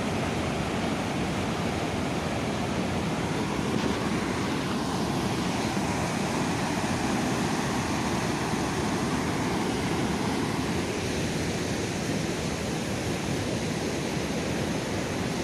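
Floodwater from a brim-full lake pouring over its stone spillway: a steady rush of falling water.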